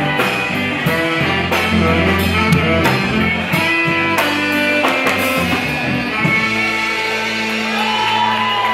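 Live rock band with guitar and drums. The drum strikes stop about five seconds in, and the band then holds a sustained chord.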